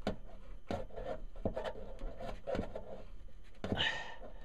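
Hand and sleeve rubbing and knocking inside a washing-machine outlet box while the hot-water shutoff valve is turned closed: scattered clicks and knocks, with a short louder rasp near the end.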